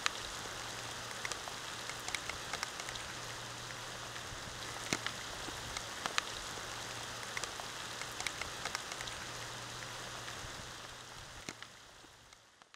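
Steady rain falling on a corrugated slate roof, with many sharp drop ticks over an even patter. It fades out near the end.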